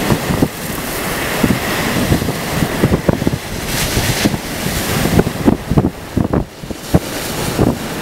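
Wind-blown lake waves breaking and splashing against a rock breakwall, under strong gusting wind. The gusts buffet the microphone in low rumbling thumps throughout, and a louder rush of spray hiss comes about four seconds in.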